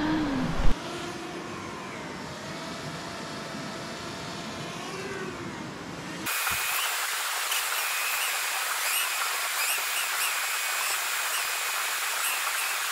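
Small camera drone's propellers whining as it hovers, the pitch wavering up and down as the motors keep adjusting. About six seconds in the whine becomes louder and higher.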